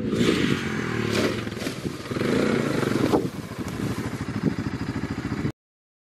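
ATV engine running as the quad drives over dry corn stubble, with stalks clattering and scraping under the tyres. It passes close by, and the sound cuts off suddenly about five and a half seconds in.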